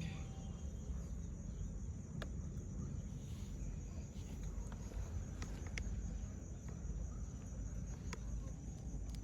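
Insects chirring in a steady high-pitched drone, over a constant low rumble, with a few sharp isolated clicks.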